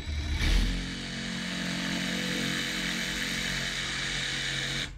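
Cordless jigsaw cutting through a foam core panel, its motor starting a moment in, running steadily and stopping suddenly near the end.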